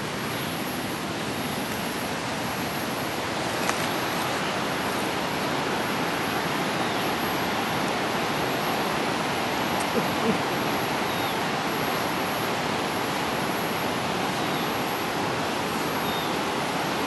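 Steady rush of flowing stream water, with a few faint clicks.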